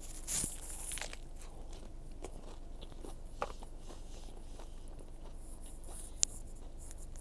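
A person biting into a burger, a short crunchy bite about half a second in, then quiet chewing with small wet mouth clicks and one sharp click near the end.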